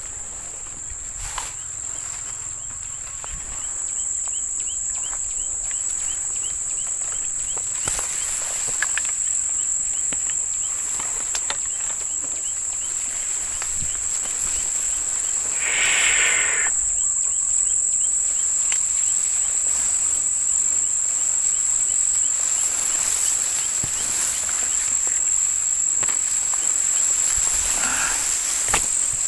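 Steady high-pitched chorus of insects, with a brief louder sound about halfway through.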